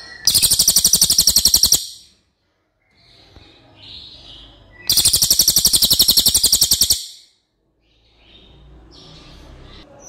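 A cililin songbird sings loud, rapid-fire trills of quickly repeated high notes. There are two bursts of about two seconds each, near the start and about five seconds in, with softer scattered chirps between them.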